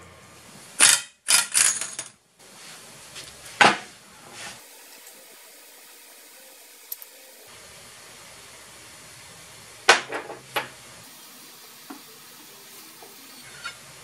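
Scattered knocks and clinks of steel hydraulic cylinder parts, the gland and stainless rod of a Case 580 backhoe boom cylinder, being handled and set down on a workbench. The strikes are loudest in the first four seconds and again about ten seconds in, over a faint steady background hiss.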